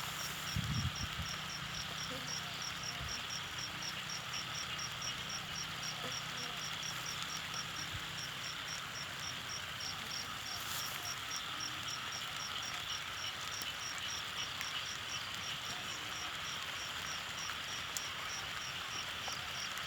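Insects chirping in a steady chorus, one of them pulsing evenly at about two or three chirps a second.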